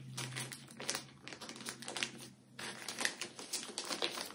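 Clear plastic baggie crinkling in irregular crackles, with a short lull about halfway, as small die-cut paper letters are picked out of it by hand.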